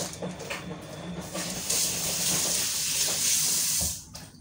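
Kitchen sink tap running full as hands are rinsed under it, shutting off just before the end. Aluminium foil crinkling before the tap opens.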